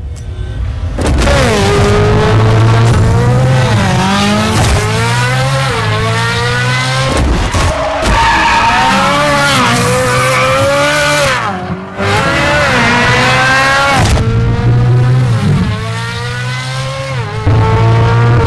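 Ferrari 458's V8 with an Fi Exhaust, accelerating hard through the gears: the engine note climbs in pitch and drops sharply at each upshift, several times over.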